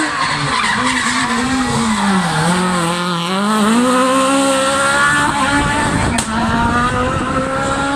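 Small hatchback race car's engine at high revs, braking into a hairpin: the pitch drops over the first three seconds, then climbs again as the car accelerates out of the bend and holds high as it pulls away uphill.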